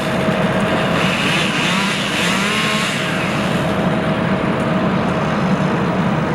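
Heavy machinery engines running steadily: a loud, even drone with a constant hum.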